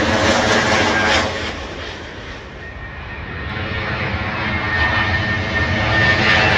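Jet airliner engines on final approach, loud at first and dropping away about a second in. Then a British Airways Boeing 787 Dreamliner's engines build again as it comes in low, with a steady high whine over the jet noise.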